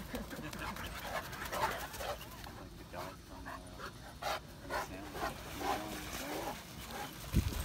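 St Bernard panting, a run of quick breathy breaths, with voices in the background.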